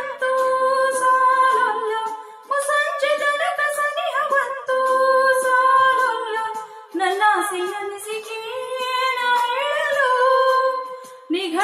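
A woman singing solo and unaccompanied, holding long notes with gliding ornaments in phrases broken by short breaths.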